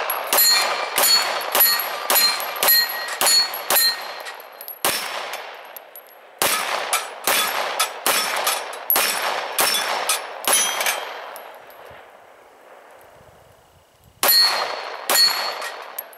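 9mm pistol fired in quick strings of shots, about two a second, each shot followed by the ringing clang of the bullet striking AR500 steel plates. After a pause of about three seconds near the end, two more shots and ringing hits.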